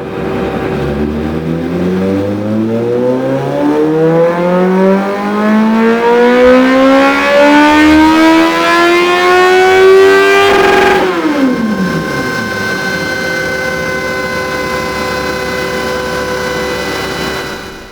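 1997 Suzuki GSF 600 Bandit's air/oil-cooled inline-four revving through a Dominator full exhaust system in one long, smooth pull. The revs climb steadily for about eleven seconds, then the throttle snaps shut and the revs fall quickly back to a steady idle.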